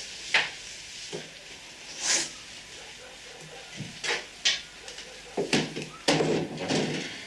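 A string of short, irregular knocks, clicks and rustles, like someone moving about a small room and handling furniture. The densest cluster comes near the end.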